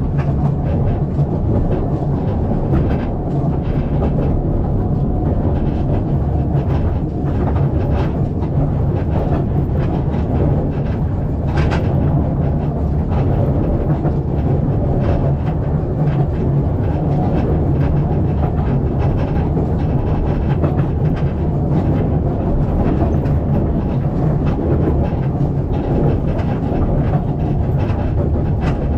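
Narrow-gauge tourist train running along the track: a steady rolling rumble of the carriage with occasional clicks and knocks from wheels and couplings, one sharper knock about twelve seconds in.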